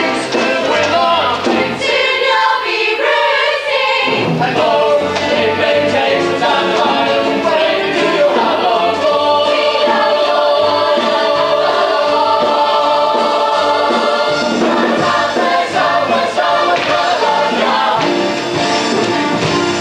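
Stage-musical ensemble singing together over instrumental backing.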